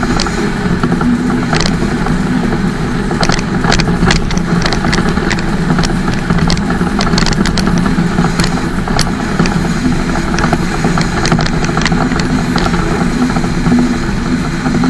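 Cummins M11 inline-six diesel in a Freightliner FLD112 running steadily at highway cruise with an even exhaust drone, pulling a 58,000-pound steel coil. Scattered sharp clicks sound over it throughout.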